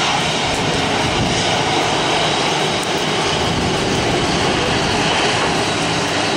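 Boeing 737 airliner's jet engines running loud and steady as it rolls at speed along a wet runway, a continuous even rush of engine noise.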